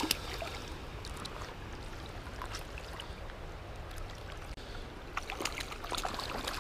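Creek water running and lapping, with a few short splashes near the end as a hooked rainbow trout thrashes at the surface beside the landing net.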